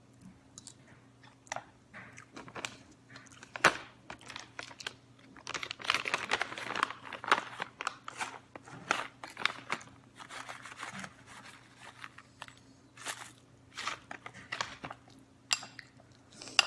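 Close-up chewing and crunching of oatmeal with crushed almonds, with many short sharp clicks and crackles, busiest about six and ten seconds in.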